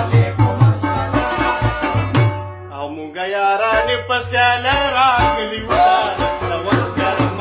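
A song playing, with a steady drum beat and a singing voice. A little over two seconds in, the drums and bass drop out for about three seconds, leaving the voice and melody, and then the beat comes back in.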